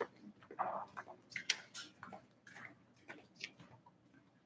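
Faint room noise in a quiet hall: scattered light taps and clicks with soft rustling, no steady sound.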